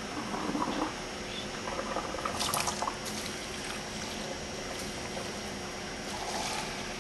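Water poured from a plastic cup into a foam box of granular incubation substrate, trickling and splashing in a few short pours over a faint steady hum.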